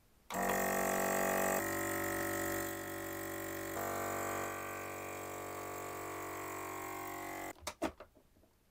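Countertop vacuum sealer's pump motor running steadily as it draws the air out of a bag of salt-cured fish before heat sealing it. Its hum drops in a few steps and cuts off suddenly near the end, followed by a few short clicks.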